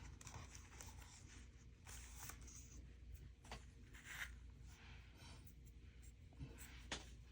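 Faint pen strokes scratching on paper, short and irregular, with light paper handling.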